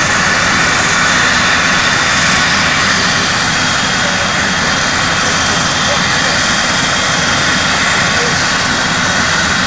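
Eurocopter EC135 rescue helicopter running on the ground, its turbine giving a loud, steady whine over the rush of the rotor.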